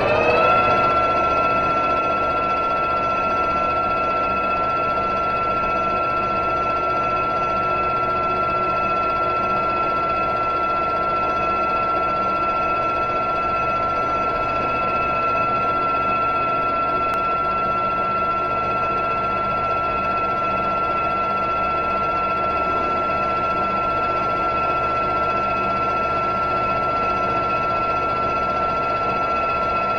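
Metal lathe motor and gearing coming up to speed in the first second, then running at a steady speed with an even, high whine.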